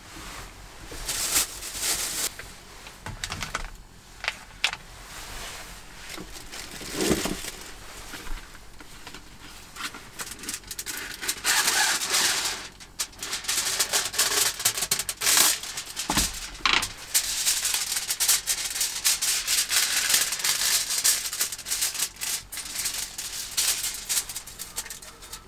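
Close rustling and clicking of objects being handled, in irregular bursts, with a couple of heavier knocks along the way and a long dense stretch of rustling over the second half.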